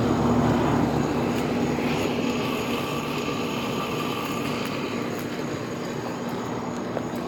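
Central air conditioner outdoor condensing unit running: a steady fan whoosh with a low hum from the compressor, getting slowly a little quieter.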